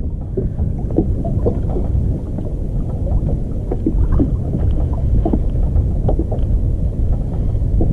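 Wind rumbling on the microphone, with small waves slapping irregularly against a kayak's hull.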